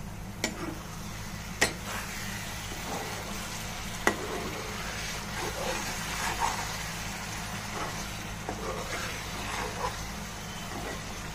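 Chickpea curry masala sizzling in a non-stick pan as a spoon stirs and scrapes through it, with a few sharp knocks of the spoon on the pan, the loudest about a second and a half and four seconds in.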